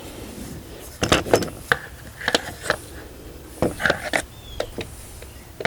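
Irregular clicks and knocks of hard plastic parts being handled: a new cordless string trimmer and its battery pack, in a quick cluster about a second in and another near the four-second mark.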